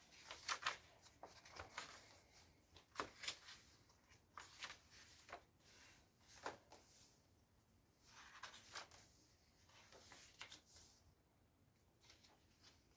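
Paper pages of a handmade junk journal being turned and smoothed by hand: faint, scattered rustles and soft taps of paper.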